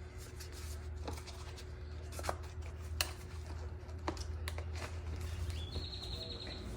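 A few light clicks and faint rustling as a compact handgun is handled against clothing, over a steady low hum.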